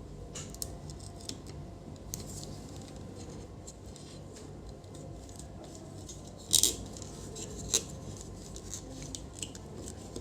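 Light clicks and scrapes of small hand tools working on a power-supply circuit board, with a sharper click about six and a half seconds in and another a second later, over a steady low hum.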